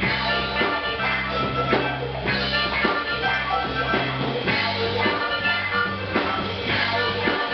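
Live blues band playing: a harmonica played cupped against the vocal microphone, over a drum kit keeping a steady beat and electric guitar.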